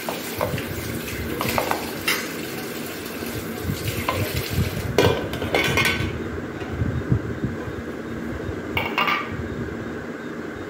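Metal clinks and knocks of an idli plate against a metal bowl as steamed idlis are turned out of it by hand, a handful of separate sharp strikes, the loudest about halfway through and another near the end.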